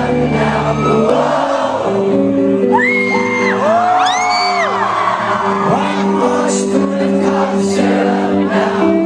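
Live rock band playing with sustained chords and singing, while audience members whoop and shout over the music, loudest about three to five seconds in. The deep bass drops out about a second and a half in.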